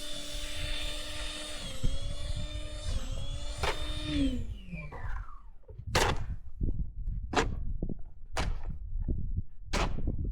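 A small motor runs at a steady pitch, dips briefly twice, then winds down and stops about four seconds in. After that comes a series of short, harsh scraping strokes, roughly one a second.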